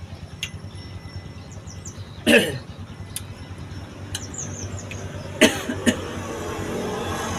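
A man coughing: one hard cough about two seconds in, then two quick shorter ones later.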